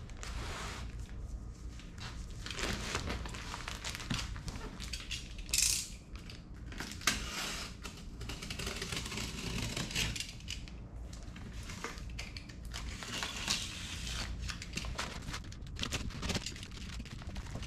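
Utility knife cutting through clear plastic wrap on a large cardboard box, the wrap crinkling and the cardboard scraping and shifting as the box is turned on a wooden workbench, with a sharp knock about seven seconds in.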